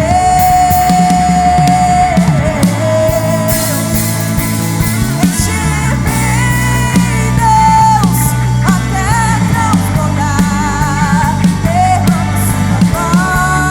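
Live worship band playing a slow contemporary Christian song, with bass, drums and electric guitar under a woman's voice holding long high notes, some of them wavering with vibrato.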